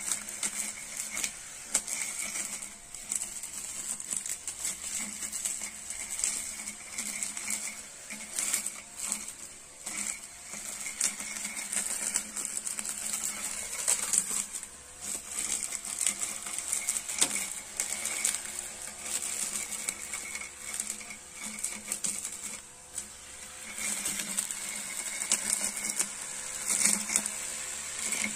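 Homemade grass cutter, a 12-volt 500 RPM DC motor on a PVC pole spinning a sharpened sheet-metal blade, whirring steadily as it is swept through weeds. Irregular ticks and rattles come as the blade strikes the plants.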